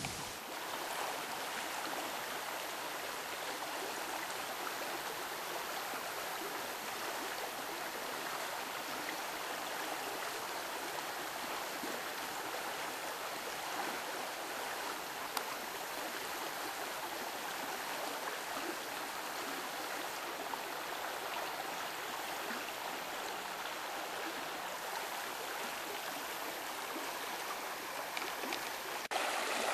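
Shallow stream flowing steadily over stones and debris, an even rushing of water.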